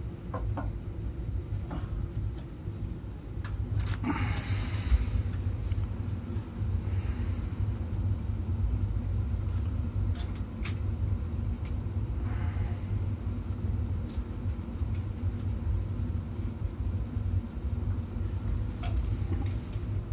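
A steady low rumble with a faint hum, broken by a few short scraping or rustling noises and light knocks, the strongest scrape about four seconds in.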